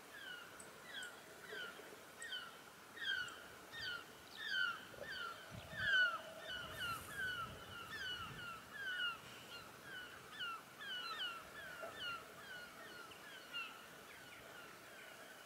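Several birds calling over and over, short sharp calls coming two or three a second and overlapping, loudest around the middle.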